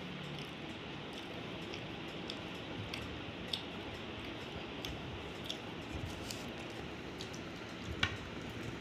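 Fingers mixing rice and curry on a plate with soft squishing, and chewing with small wet mouth clicks, over a steady hiss. A sharper click comes near the end as a handful goes into the mouth.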